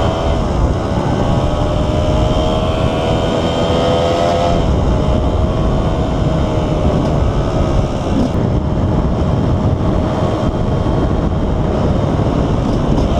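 KTM 125 EXC single-cylinder two-stroke engine running while riding. Its pitch climbs slowly, drops about four and a half seconds in, then holds fairly steady.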